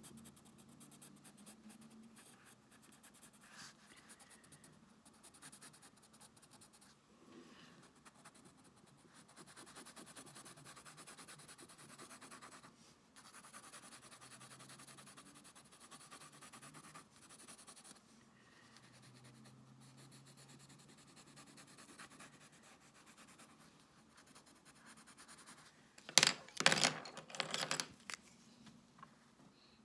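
Pencil crayon shading on sketchbook paper: faint, steady scratching strokes of the lead across the page. Near the end, a brief louder clatter of knocks as pencils are handled.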